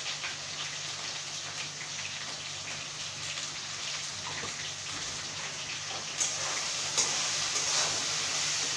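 Potato pieces frying in oil in a steel wok, a steady sizzle with fine crackles. From about six seconds in, a metal spatula stirs them, scraping against the wok.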